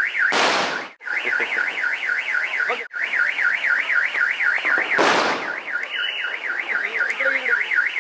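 Car alarm warbling rapidly up and down, about five sweeps a second, set off among the parked cars, with two firecracker bangs, one at the start and one about five seconds in.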